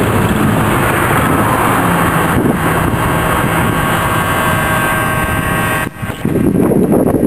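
Radio-controlled model boat running across the water: a steady motor whir with a faint high whine over a rush of noise. About six seconds in the sound drops briefly, then comes back rougher.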